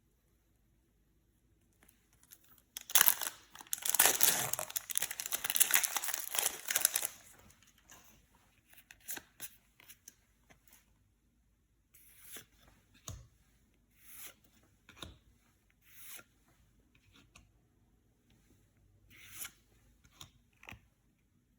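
A Yu-Gi-Oh booster pack wrapper torn open, loud and ragged for about four seconds from roughly three seconds in. It is followed by scattered short crinkles and light clicks as the wrapper and cards are handled.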